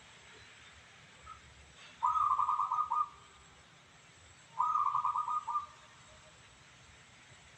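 Zebra dove (perkutut) cooing: two rolling, rapidly pulsed coos of about a second each, roughly two and a half seconds apart.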